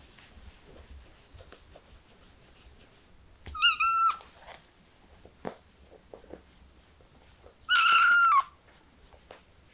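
Kitten meowing twice: two high-pitched meows about four seconds apart, the second longer and louder.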